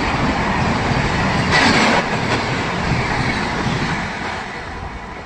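Passenger coaches of an express train running through a station at speed without stopping, wheels rattling over the rails, with a brief louder hiss about a second and a half in. The noise dies away over the last second or so as the rear of the train passes.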